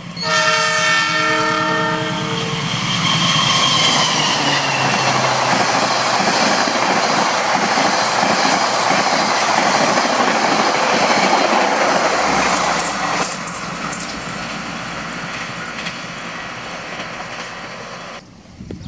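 A train horn sounds for about two and a half seconds as the train comes in, then a passenger train passes at speed with loud wheel and rail clatter. The noise eases off after about 13 seconds as the train moves away.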